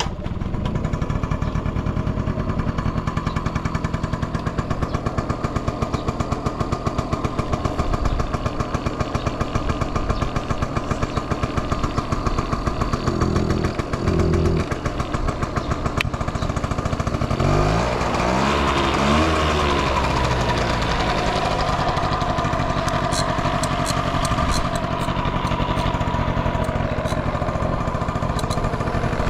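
A Yamaha Passol's 50cc two-stroke single-cylinder engine idles with an even beat. About two-thirds in it is blipped up and down several times, then keeps running faster. It runs with no abnormal noise and revs up freely.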